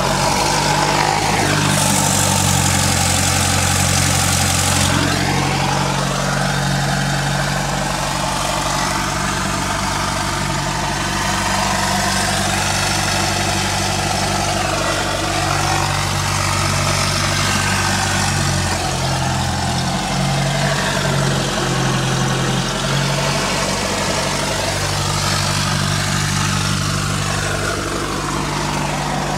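Cessna 172SP's four-cylinder Lycoming IO-360 engine and propeller idling steadily, heard from inside the cockpit, its pitch shifting slightly a few times. A hiss joins in for a few seconds about two seconds in.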